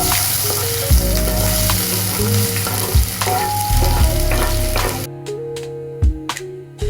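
Garlic-marinated chicken sizzling in hot oil in a pan, a steady frying hiss that cuts off suddenly about five seconds in. Soft guitar music plays underneath.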